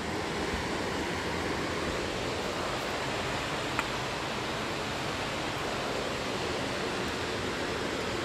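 Steady rush of a mountain stream tumbling over rocks, with one small click a little under four seconds in.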